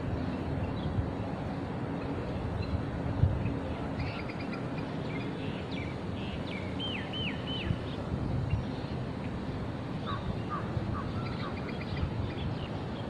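Outdoor ambience with a steady low rumble and faint bird calls: a run of short chirps and a few hooked, whistled notes about four to eight seconds in, then more chirps near the end.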